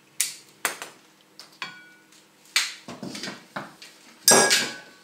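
Ceramic bowls and kitchen utensils knocked and set down on a table: about six separate knocks and clinks, a couple ringing briefly, the loudest about four seconds in.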